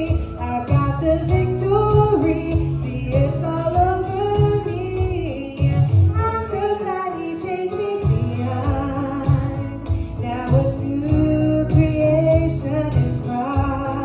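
Gospel song sung with instrumental accompaniment: sung melody with a female voice carried over a steady bass and backing that runs without a break.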